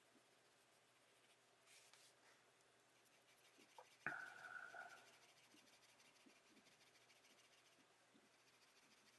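Faint pencil shading strokes on paper, with a sharp tap and a short squeak about four seconds in.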